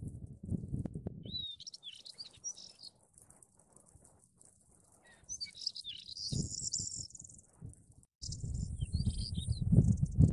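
Small birds calling in short chirping phrases, several times. Gusty bursts of low rumbling noise come and go, loudest near the end.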